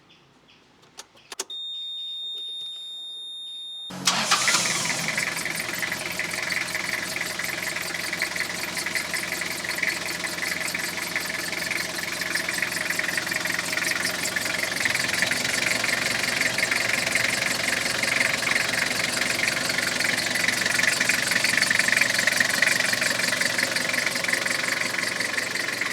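A steady high beep for about two seconds, then the Toyota Qualis diesel engine starts about four seconds in and runs steadily at idle: its first start after an oil, oil filter and diesel filter change.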